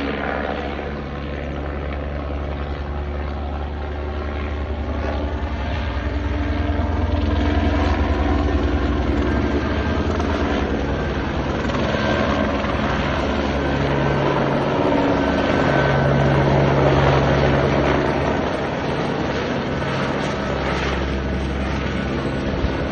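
Helicopter running continuously, its engine and rotor making a steady hum that grows louder from about six seconds in and eases a little near the end.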